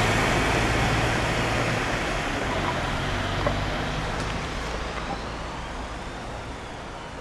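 A steady wash of outdoor street noise with a low engine hum underneath, fading out gradually.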